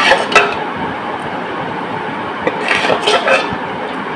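A metal spoon clinking against a serving bowl: two sharp clinks at the start and a short run of clinks about three seconds in, over a steady background hiss.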